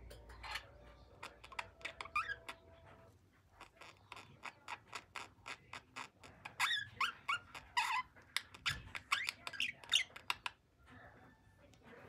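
Budgerigars chattering: a rapid run of clicks mixed with short whistled chirps and squeaks. It is busiest and loudest in the second half, then stops briefly near the end.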